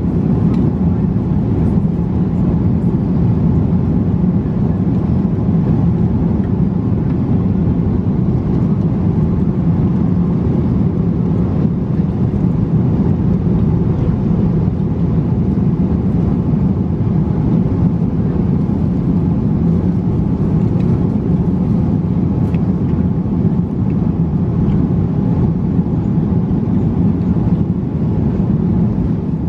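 Steady low cabin noise of an Airbus A330-300 airliner in cruise, the constant rush of airflow and engines heard from an economy seat.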